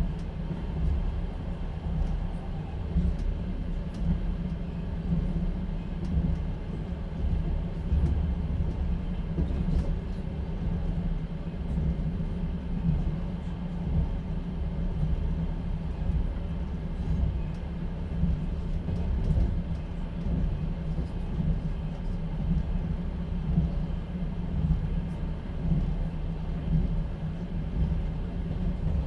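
Passenger train carriage in motion heard from inside a platskart sleeper car: a steady low rumble of the running gear, with the knocking of the wheels on the rails swelling and fading every second or so.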